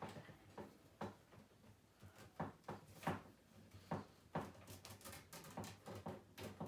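Irregular clicks and rustles of a split corrugated plastic wire loom as cables are pressed into it along its slit.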